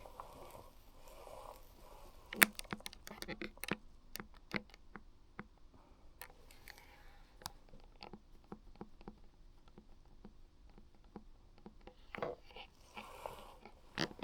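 Irregular series of sharp clicks and taps from the buttons and controls of a Ford 6000 CD factory car radio being worked. The loudest click comes about two seconds in, the clicks are thickest through the first half, and a cluster comes again near the end.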